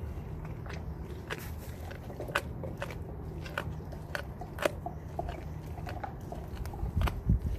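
A dog gnawing on a whitetail deer leg bone: irregular sharp cracks and crunches of teeth on bone, about two or three a second, with heavier low thumps near the end.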